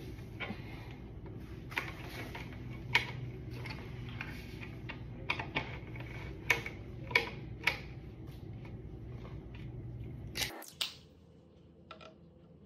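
Scattered light knocks and clicks as panels of a children's table are handled and fitted into the tabletop, over a steady low hum that cuts off about ten seconds in.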